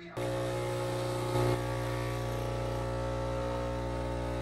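Capsule coffee machine's pump humming steadily as it brews, starting abruptly just after the start, with a brief swell about a second and a half in.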